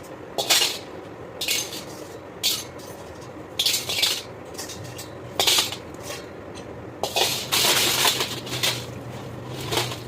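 Metal parts clinking and scraping in short, irregular bursts, with one longer scrape about seven seconds in, over a steady low machine hum.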